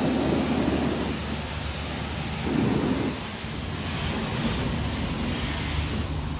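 Car-wash pressure-washer wand spraying water onto a 4WD's body in a steady hiss. The spray drums louder on the panels twice, near the start and about two and a half seconds in.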